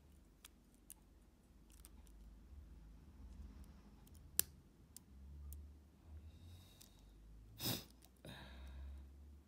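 Lock pick and tension tool working the pins of a Brinks Commercial five-pin padlock: scattered small metallic clicks, with a sharper click about four seconds in. A louder knock comes near the end, followed by about a second of rustling.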